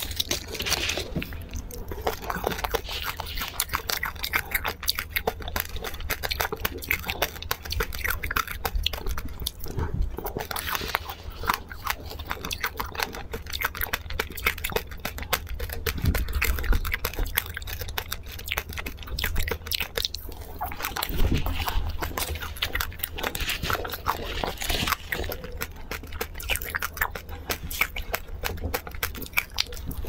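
Close-miked biting, crunching and chewing of a sprinkle-coated treat on a stick, wet mouth sounds mixed with dense irregular crackle. Foil wrapper crinkles as it is peeled off at the start.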